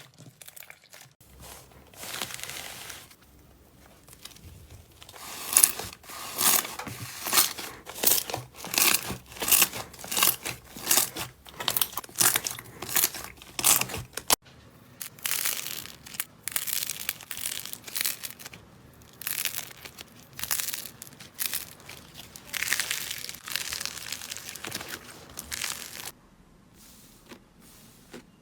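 Slime being squeezed and pressed by hand, making repeated short squishing and popping strokes about two a second.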